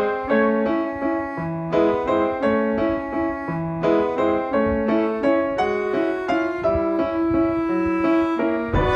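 Background music: a light classical piece of quick, separate piano-like notes playing a melody.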